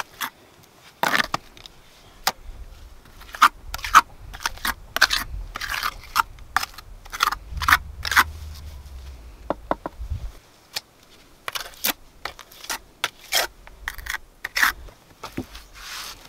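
Gloved hand scraping and smearing wet clay mortar over a stone wall: a run of irregular short scrapes and gritty crunches.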